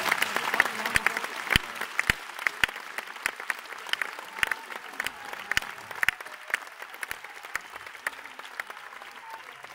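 Audience applauding in a theatre, the clapping thinning out into scattered single claps and fading away.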